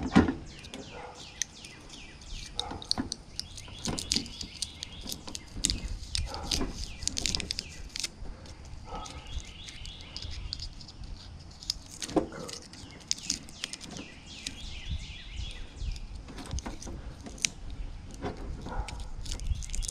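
Scattered light clicks and knocks of metal parts and tools being handled during scrapping, with birds chirping in the background.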